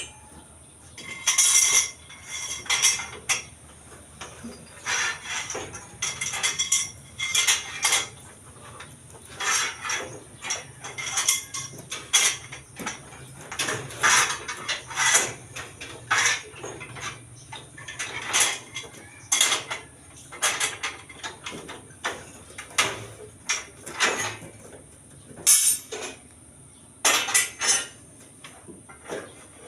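Steel reinforcing bar clinking and clanking in irregular short metallic strikes, about one or two a second, as rebar stirrup rings for a concrete column are bent and handled.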